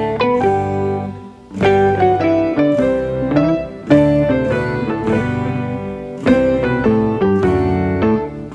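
Instrumental background music: a light melody of separate plucked notes over a lower accompaniment.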